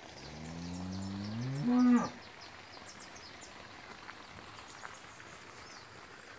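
A cow mooing once: one low call about two seconds long that rises in pitch and is loudest just before it cuts off.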